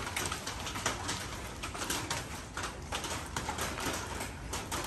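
Light rain pattering and dripping around the yard, a steady hiss flecked with many small drops.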